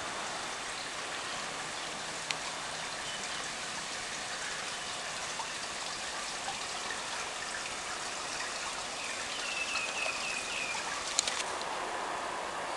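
Steady hiss of water trickling and splashing at a swimming pool, with a quick run of short high chirps near the end.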